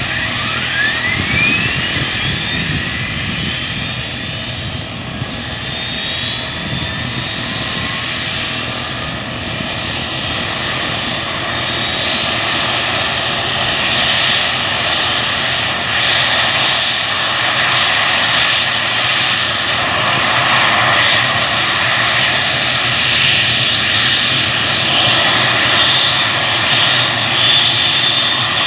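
Kamov Ka-32 helicopter's twin turboshaft engines running, a loud turbine whine over a steady rushing noise. Several whining tones climb in pitch, one of them quickly about a second in, and the sound grows slightly louder.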